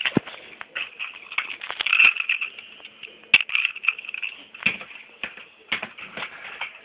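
Toy engines running on plastic track: a steady motor whir with many small clicks, knocks and clatters of plastic, and a heavier thump about a quarter second in.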